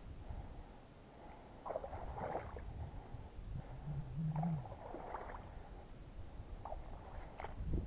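Footsteps squelching and sloshing through a waterlogged bog: a few irregular, uneven steps over a low rumble, with a short low hum a little before the middle.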